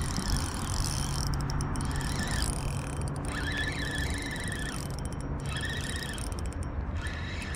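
Spinning reel being cranked to bring in a small hooked crappie. A thin whine comes and goes in short spells.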